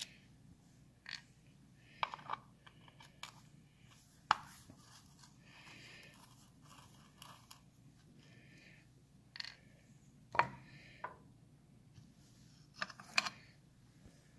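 Screwdriver working the small screws out of a Triumph 650 engine's round side cover, then the cover lifted off: faint scraping with a handful of sharp little metal clicks.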